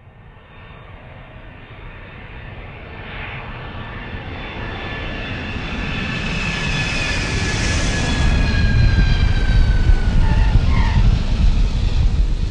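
Aeroplane engines growing steadily louder as an aircraft approaches and passes over, a deep rumble under a high whine that slowly falls in pitch.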